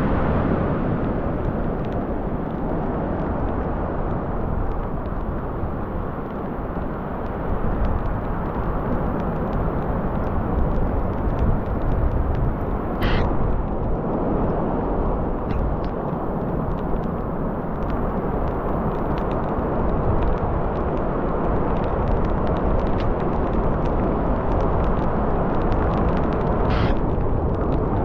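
Strong wind buffeting the microphone: a steady, heavy low rumble with no break. Two brief hissing sounds cut across it, one about halfway through and one near the end.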